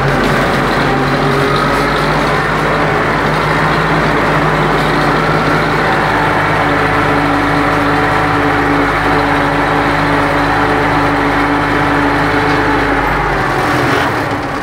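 Farm tractor engine running steadily while pulling a field sprayer, heard from inside the cab. Near the end the engine note drops as the tractor throttles back.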